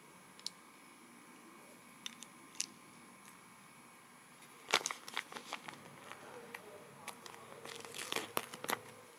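LEGO pieces and a plastic parts bag being handled: a few light plastic clicks, then from about halfway a dense run of crinkling, tearing and clicking.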